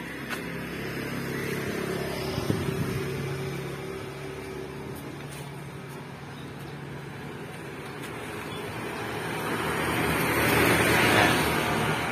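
A motor vehicle engine running steadily. It grows louder about two seconds in and again near the end.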